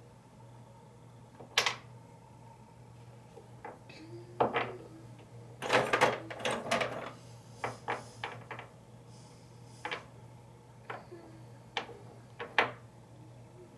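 Irregular sharp clicks and knocks, a dozen or so, bunched most thickly near the middle, over a low steady hum.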